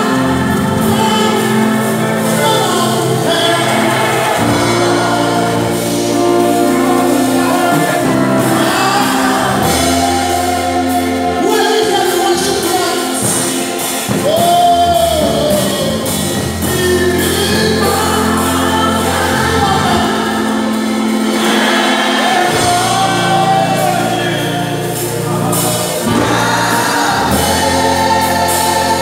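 Live gospel worship music: a male lead singer on microphone and a choir singing together over an amplified band, with long held bass notes underneath.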